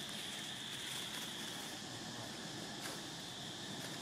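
Steady, high-pitched insect drone in the background, with a faint short tick about three seconds in.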